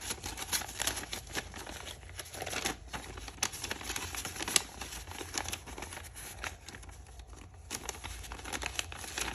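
Paper money and cash envelopes being handled: banknotes rustling and crinkling as they are counted out and slid into a paper envelope, a string of small irregular crackles with a brief lull about seven seconds in.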